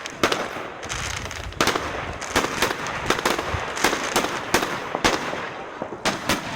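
Fireworks going off: an irregular string of sharp bangs and pops, two or three a second, over continuous crackling.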